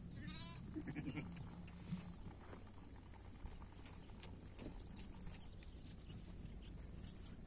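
A sheep bleats once, a short wavering call just after the start, over scattered faint clicks from the flock.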